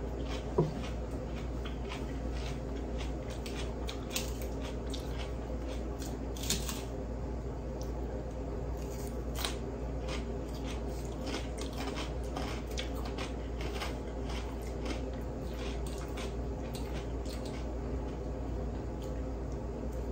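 A person chewing mouthfuls of crisp Caesar salad close to the microphone: a run of irregular small crunches and mouth sounds.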